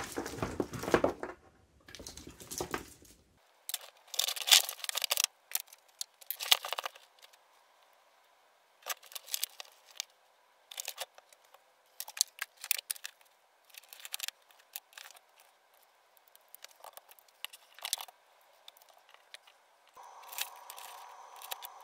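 A 45-year-old Triumph TR7 wiring loom being handled and untangled: irregular bursts of rustling and scraping as the wire bundles are dragged across the workbench, with clicks and clacks from its plastic connectors. A faint steady hum comes in near the end.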